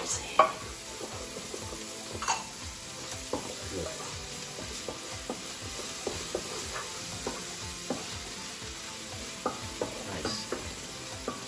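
Onions and garlic sizzling as they fry in oil in a pan, stirred with a utensil that taps and scrapes against the pan now and then. The sharpest tap comes about half a second in.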